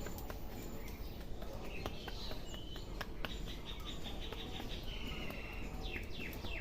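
Small birds chirping, with a rapid trill about halfway through and a few quick falling chirps near the end, over scattered sharp clicks from hair cracking, strands of hair twisted and snapped between the fingers during a head massage.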